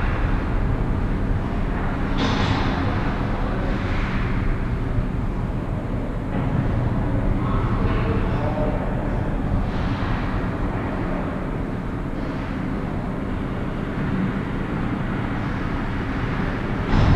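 Indoor ice rink ambience: a steady low rumble, with a few short scrapes of skates on the ice about two seconds in, around four seconds and near ten seconds.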